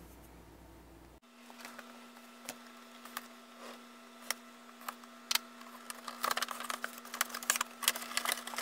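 Cardboard figure box being handled and slid up off the clear plastic blister tray inside it: scattered taps, clicks and crinkles of card and plastic, coming thicker and faster near the end.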